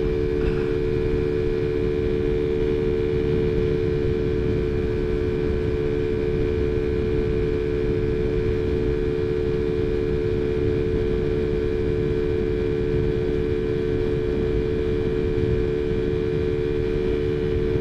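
TaoTao Zummer 50cc scooter engine, with a big-bore kit and an open pod air filter, running at a steady cruising speed with an even, unchanging drone, over wind rumble on the microphone.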